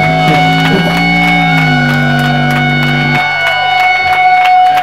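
Live rock band playing, electric guitar to the fore, on a held chord. The low notes stop about three seconds in, while a high steady tone carries on and cuts off near the end.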